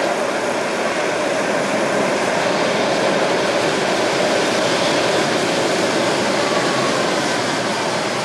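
Light rail train running through an underground station past the platform, giving a steady rumble of wheels on rails. A motor tone that is strong as the train enters fades in the first second.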